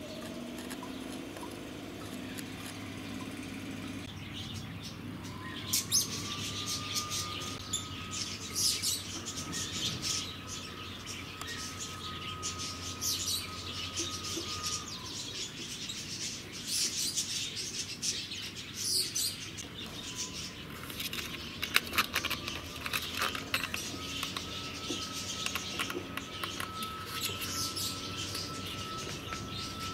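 Birds chirping in many short, high calls, starting about five seconds in and carrying on throughout, over a faint steady whine and hum.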